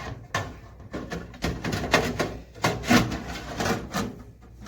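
Handling noise from a countertop breakfast-station appliance: a run of knocks, clicks and scraping as its hard parts, such as the pull-out grease tray, are moved and set in place.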